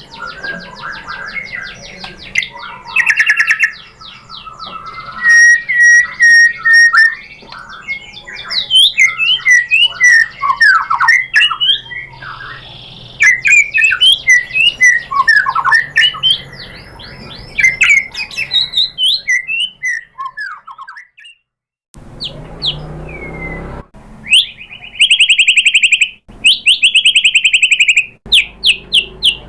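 White-rumped shama (murai batu) singing a long, varied song of fast whistled notes, rising and falling glides and trills. It breaks off briefly about two-thirds of the way through, then runs into harsh, buzzy rattling phrases repeated several times.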